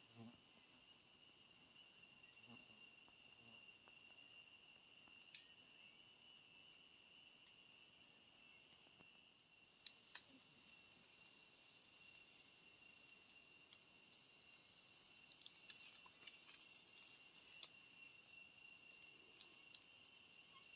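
A steady chorus of forest insects calling, several high-pitched drones at once, with a louder insect call joining about halfway through, over a few faint ticks.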